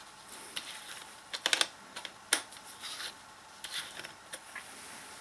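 Scattered light clicks and taps of the impact driver's chuck attachments and adapter being handled and fitted, with a quick run of clicks about a second and a half in.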